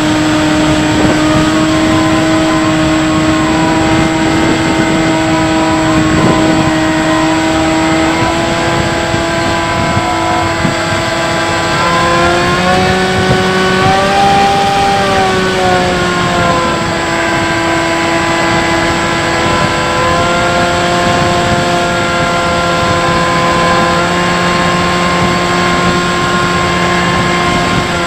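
Electric motor and propeller of a Bixler 3 RC plane running steadily in flight, heard from a camera mounted on the plane. The whine rises slightly in pitch about 13 seconds in, settles back a few seconds later, and drops as the throttle eases near the end.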